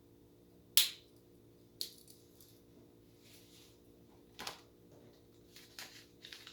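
A few sharp clicks and taps from a small multi-tool pocket knife being handled with its scissors open. The loudest click comes about a second in, with softer ones a second later, again past four seconds, and a few light ticks near the end.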